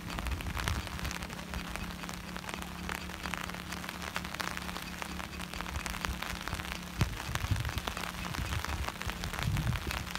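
Rain pattering, a dense crackle of small drops, over a steady low hum.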